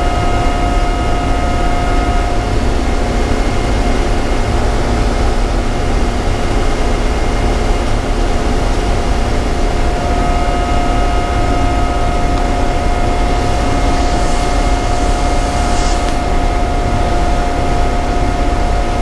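Frac blender machinery running in a steady loud drone, heard from inside the blender's operator cab, with a constant whine held over the rumble.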